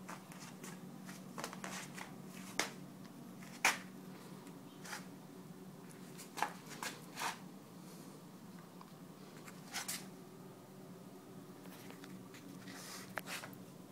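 Scattered clicks, taps and rustles close by, as a hand-held phone is moved around, over a faint steady low hum; the sharpest click comes a little under four seconds in.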